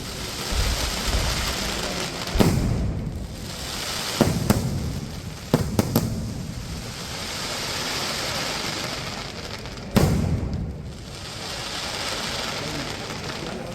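A fireworks display: about five sharp bangs of bursting fireworks, the loudest about ten seconds in, with a steady crackling hiss between them.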